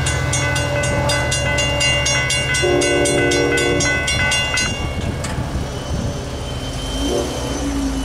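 General Signals Type 3 electronic crossing bell ringing rapidly, about five strikes a second, then cutting off a little under five seconds in as the gates begin to rise. A short train horn blast sounds about three seconds in, over the low rumble of the departing train, which fades away.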